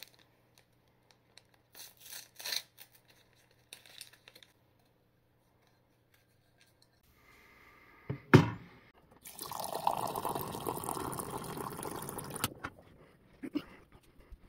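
Water cooler dispenser running hot water into a ceramic mug for about three seconds, a steady pouring fill. Just before the pour there is a sharp knock, the loudest sound, and a couple of brief clatters come about two seconds in.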